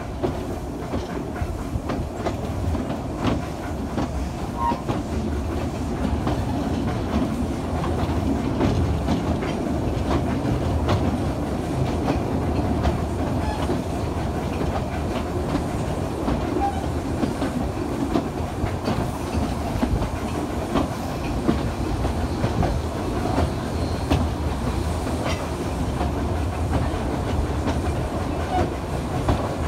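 2 ft gauge narrow-gauge train carriage running along the track: a steady rumble of wheels on rail with scattered clicks throughout.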